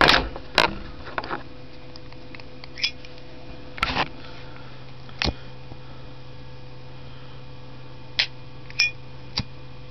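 Zippo lighter handled: a series of sharp clicks and clinks of the hinged lid being flipped open and snapped shut, about nine of them at irregular intervals.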